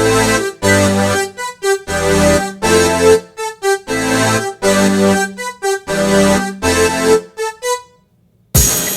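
Modern R&B music: a keyboard playing chords in short rhythmic stabs with brief gaps, stopping shortly before the end. Just before the end a drum pattern starts.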